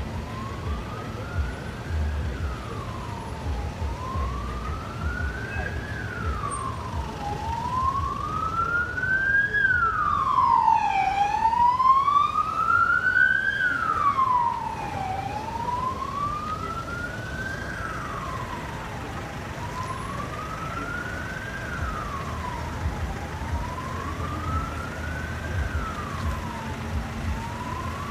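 Emergency vehicle siren wailing, each cycle a slow rise and a quicker fall in pitch, about every four seconds. It is loudest about ten to fourteen seconds in, then eases off, over a low rumble of traffic.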